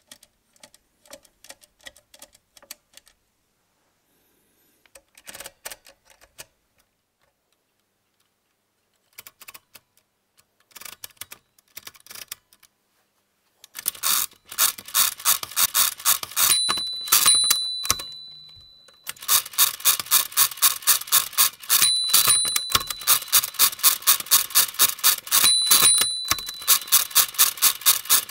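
Walther WSR 160 mechanical calculator in use. In the first half there are light clicks as the setting levers are moved to enter a number. About halfway through, the hand crank starts to be turned in quick succession, about four clattering turns a second, and a bell dings several times: the calculator's overdraft bell, signalling that the division has gone one subtraction too far.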